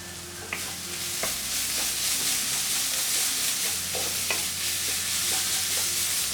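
Onion masala sizzling in hot oil in a pan while being stirred with a spoon, with a few sharp clicks of the spoon against the pan.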